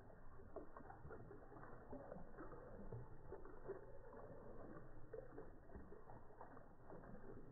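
Faint trickling and splashing of water running down a stacked-rock garden fountain, slowed down by slow-motion playback so it sounds low and muffled.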